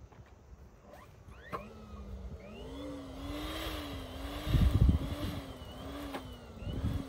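Helium hissing from a canister into a latex balloon as it is filled, with a wavering tone over the hiss. A low rumble of wind on the microphone about halfway through.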